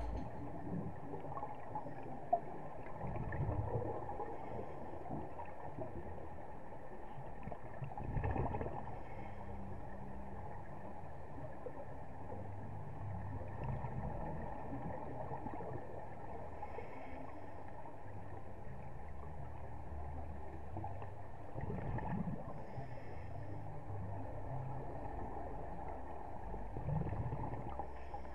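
Muffled underwater noise picked up by a scuba diver's camera, swelling every few seconds with the burble of bubbles exhaled through the regulator. A single sharp click comes about two seconds in.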